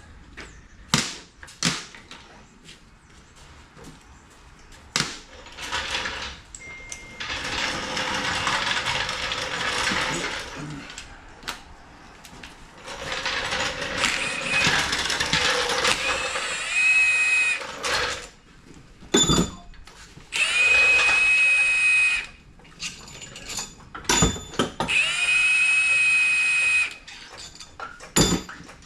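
Impact gun running in several bursts of a few seconds each, spinning bolts off an LS engine during teardown, with short metal clanks between the bursts.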